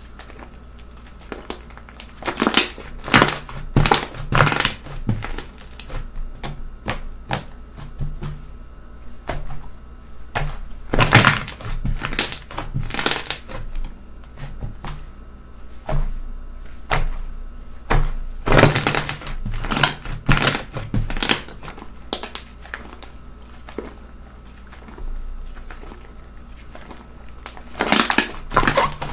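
Slime being squeezed and pressed by hand, giving several bursts of dense crunchy crackling a few seconds long, with scattered clicks in between.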